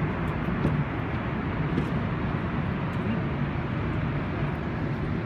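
Rubber-tyred MR-73 Montreal Metro train moving through the station: a steady rumble and hiss.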